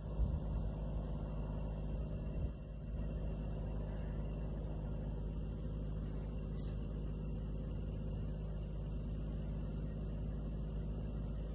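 A steady low rumble, with a short high hiss about six and a half seconds in.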